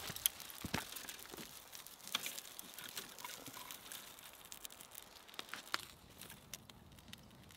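A campfire being kindled: burning birch bark and dry twigs crackling with many small, irregular snaps, mixed with the rustle and snap of twigs being laid on the flame.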